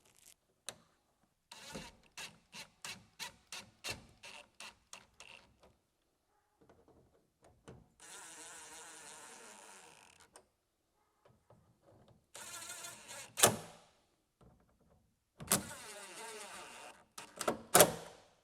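Cordless drill/driver running in short spurts, driving the screws that hold a new door speaker in place, with sharp clicks as the screws seat. A run of light, evenly spaced clicks comes first.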